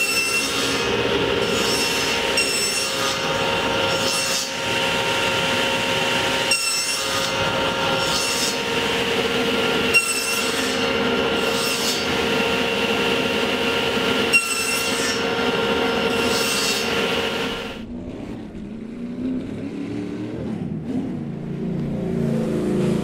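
Table saw running steadily while a box joint jig carries a 3/4-inch plywood panel through the blade, each pass sounding as a brighter surge of cutting noise every couple of seconds. The saw sound stops abruptly about 18 seconds in, leaving quieter, indistinct handling sounds.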